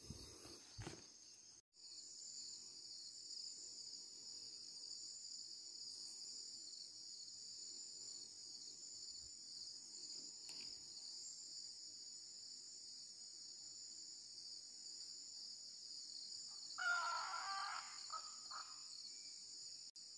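Faint, steady high-pitched chorus of forest insects, with a brief louder mid-pitched sound about three seconds before the end.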